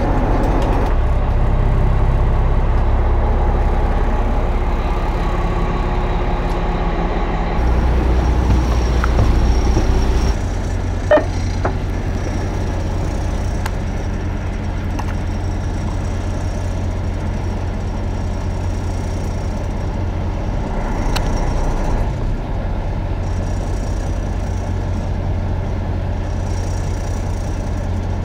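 Fishing boat's engine running, a steady low drone. The sound shifts about ten seconds in, and a single sharp click comes about a second later.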